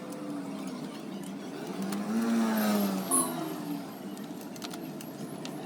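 A motor vehicle's engine swells and fades a couple of seconds in over steady traffic and workshop background noise, with a few light clicks.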